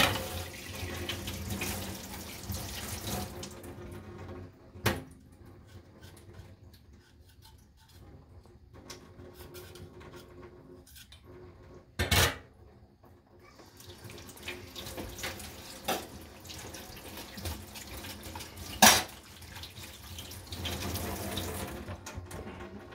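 Water from a kitchen tap running into a sink in two stretches, a few seconds at first and longer later on, with three sharp clatters of kitchenware.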